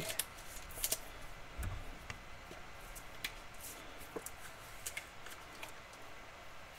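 Faint, scattered clicks and light taps of trading cards and their holders being handled, with a soft thump about one and a half seconds in.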